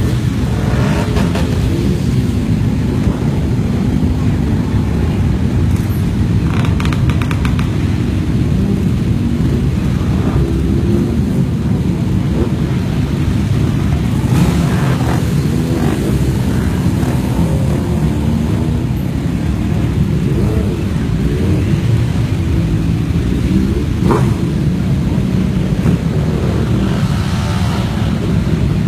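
Motorcycle engines in a slow convoy: a steady low rumble, with pitch rising and falling now and then as bikes rev.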